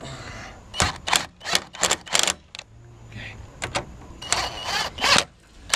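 Hand ratchet clicking in short, irregular strokes, about six quick bursts and then a denser run near the end, as a grab-bar bolt is tightened into a windshield frame.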